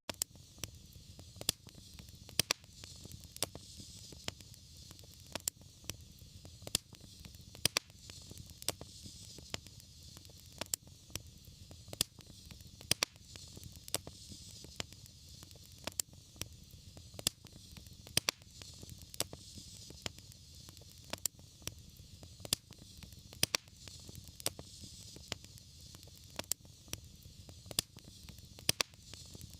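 Fire burning in a fireplace, crackling with irregular sharp pops, a few a second, over a low steady rumble and a faint hiss.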